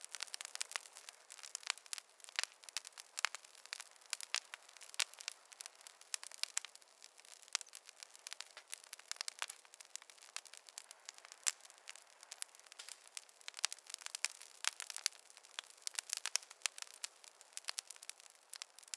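Campfire crackling: dense, irregular sharp pops and snaps from burning wood over a faint hiss, with no low rumble.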